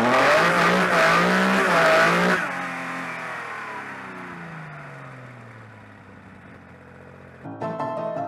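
Car engine revving hard at high rpm, then the throttle is cut sharply about two and a half seconds in and the engine note falls steadily in pitch and fades over several seconds. Piano music starts near the end.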